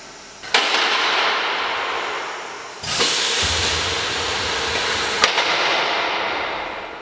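Compressed air hissing from a Finkbeiner UHB 6/4 Hebeboy pneumatic column lift as it cycles its air bellows. The hiss comes in two sudden bursts, about half a second in and about three seconds in, each starting with a click. A sharp click comes near the end.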